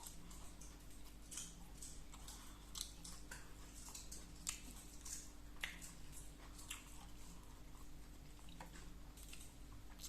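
Close-up eating sounds: irregular soft mouth clicks and smacks of someone chewing koi khom and sticky rice, over a faint steady hum.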